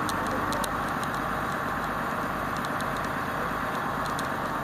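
Diesel engine of a KATO truck-mounted crane running steadily while the crane holds a suspended transformer.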